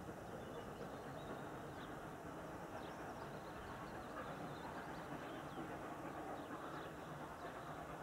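Faint outdoor ambience: a steady low rumble, with birds chirping briefly now and then.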